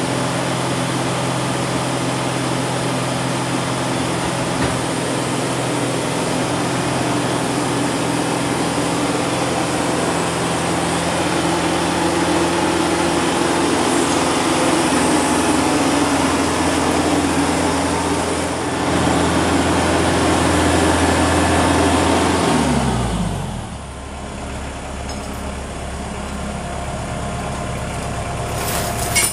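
Kubota HST tractor's diesel engine running steadily, a little louder through the middle; about 23 seconds in its pitch falls away and it settles to a lower, quieter hum.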